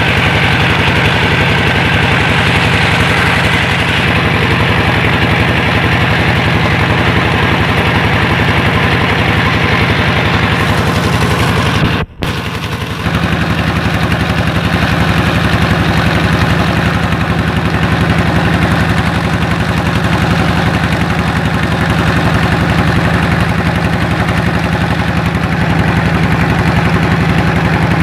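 A vehicle's engine running steadily, its firing pulses fast and even. The sound drops out for a moment about twelve seconds in, then carries on.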